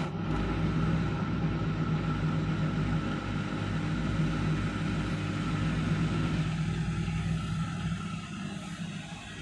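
Indesit washing machine running with a steady motor hum and drum noise, starting suddenly at full level.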